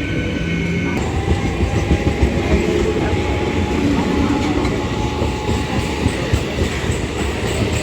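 Suburban electric local train running on the line, its wheels clattering over the rail joints.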